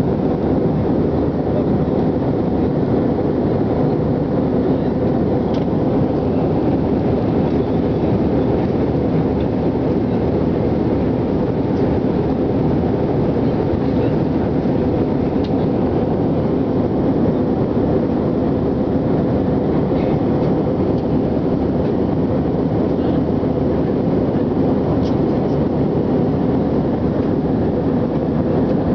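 Steady cabin noise of an airliner in cruise, the engines and rushing airflow heard from a window seat.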